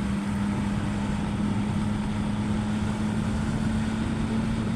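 Car driving, a steady engine hum that rises slightly in pitch over road rumble.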